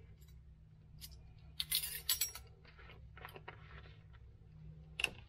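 Small jars and containers clinking and rattling as they are rummaged through. There are a few sharp clinks about a second in, a cluster around two seconds and one more near the end, over a low steady hum.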